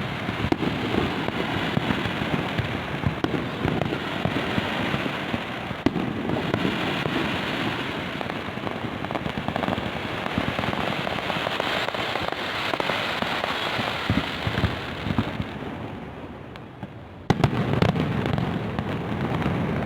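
Fireworks display: a continuous run of bangs and crackling bursts that eases off for a moment near the end, then starts again with a sharp loud bang.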